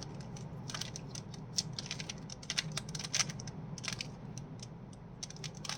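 Rubik's cube layers being twisted by hand: a quick, irregular series of light plastic clicks and clacks, several a second, as the moves to form a cross on the last layer are worked through.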